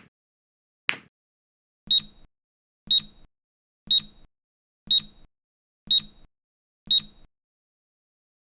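Newton's cradle clicking twice, one click a second, then six short, high electronic beeps one second apart: the timer's alarm that the countdown has ended.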